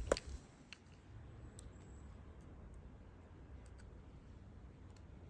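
Small clicks of a screwdriver and tiny parts being handled on the phone's open chassis: one sharp click just after the start, then a few faint, scattered ticks.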